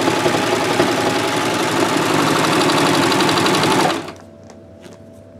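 Baby Lock overlock serger running steadily at speed as it stitches a knit side seam and chains off the end, then stopping abruptly about four seconds in. A faint hum and a few small clicks follow.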